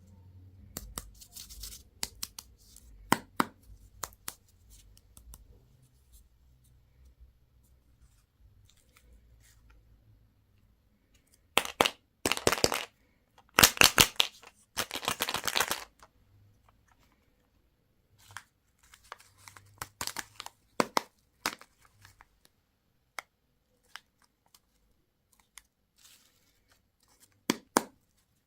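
Candy and toy packaging being torn open and crinkled: scattered sharp crackles and clicks, with a long, dense run of tearing near the middle and another cluster soon after.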